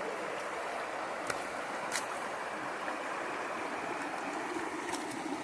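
Shallow stream running over rocks, a steady rush of water, with a few faint clicks.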